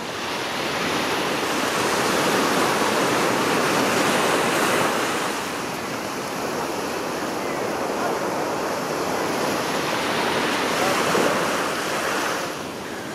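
Sea surf washing and surging around a rocky outcrop, swelling about a second in and dropping back near the end.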